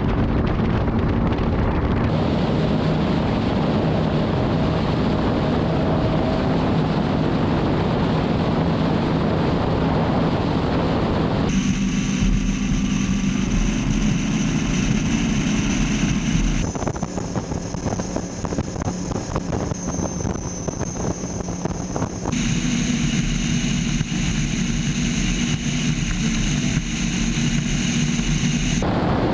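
Skater catamaran powerboat engines running at speed, heard onboard as a steady drone with wind and water rushing past. The sound changes abruptly several times.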